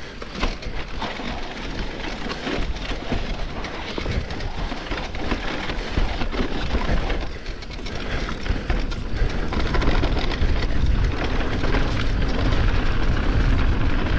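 Wind buffeting the bike-mounted or helmet microphone, with a heavy rumble, and the rattle of an electric mountain bike's tyres and frame over a rough dirt trail on a fast descent. It grows louder through the second half as speed builds.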